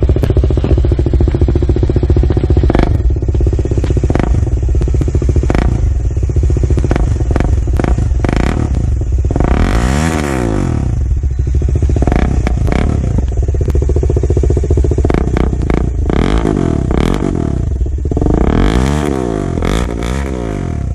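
Kawasaki Dominar 400's single-cylinder engine idling through a newly fitted aftermarket slip-on muffler. The throttle is blipped up and back down twice, about ten seconds in and again near the end, and short clicks and clatter are scattered throughout.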